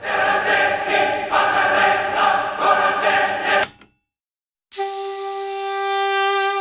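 Film score music of held, choir-like chords with a gentle pulse, changing chord about a second in and cutting off a little under four seconds in. After a moment of silence, one steady held note begins.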